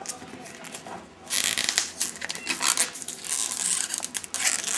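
Plastic shrink-wrap on a boxed router crinkling and crackling as hands work at it, starting about a second in and going on irregularly.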